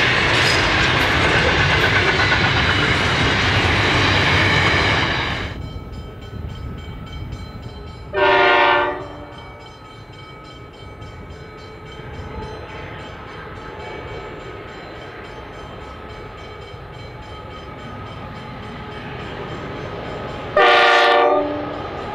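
Container wagons of a long intermodal freight train rolling past close by, the sound cutting off about five seconds in. Then a diesel freight locomotive's multi-tone horn sounds twice, about twelve seconds apart, each blast about a second long, over the low steady rumble of the approaching train.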